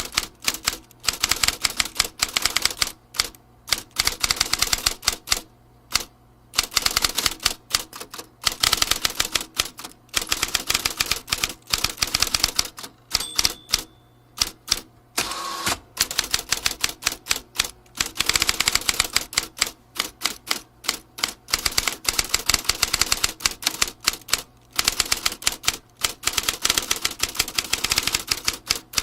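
Manual typewriter being typed on: rapid runs of sharp key strikes and typebar clacks in bursts of a few seconds, broken by short pauses.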